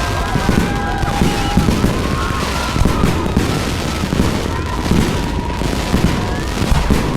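A dense, continuous barrage of fireworks and firecrackers: rapid pops and rumbling booms with no break. Thin high tones slide up and down above the crackle.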